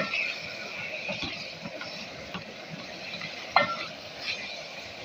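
Wooden spoon stirring keema frying in its masala in an aluminium pot, knocking against the pot's side with a short metallic clink at the start and again about three and a half seconds in, over the steady hiss of the frying mince.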